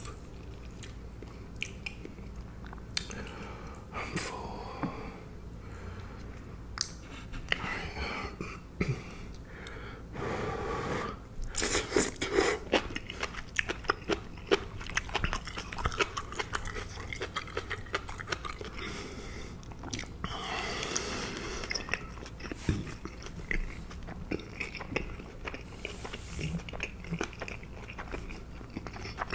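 A person chewing and biting food close to the microphone, with irregular wet clicks and crackles, growing louder and denser for a few seconds about a third of the way in and again past the two-thirds mark.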